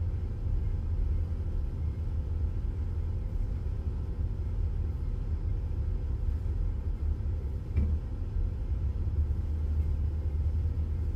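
Car's low, steady engine and road rumble heard from inside the cabin while driving, with a short thump about eight seconds in.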